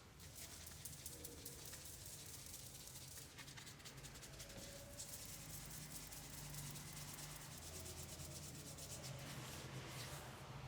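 Hands rubbing and massaging skin or hair, a faint steady rustling with fine crackle.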